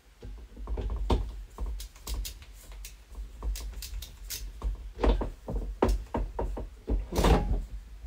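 Irregular light clicks, taps and knocks of computer hardware being handled and fitted into a PC case, with louder knocks about five seconds in and again about seven seconds in.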